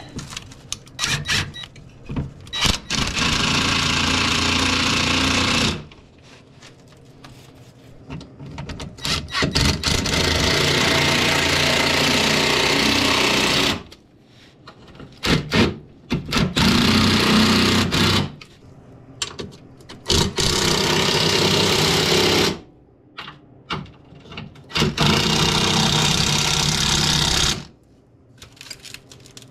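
A handheld power tool running bolts in: five runs of a few seconds each, with clicks and knocks of tools and metal parts between them.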